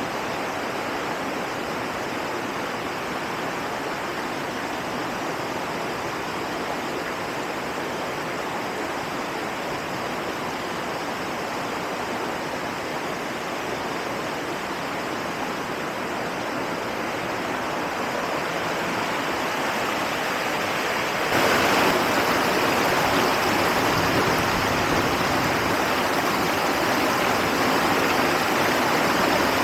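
Rushing river water, a steady even rush that swells and then jumps up suddenly about two-thirds of the way through, staying louder to the end.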